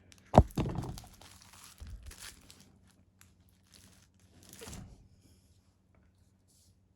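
Paper-wrapped firecracker packs being handled, their wrappers crinkling and rustling. There is a sharp crackle about half a second in and another burst of rustling near five seconds.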